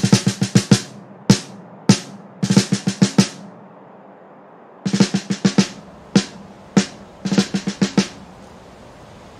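Drum kit playing on its own: quick flurries of snare-drum hits, several a second, broken up by single strokes and a pause of about a second and a half midway.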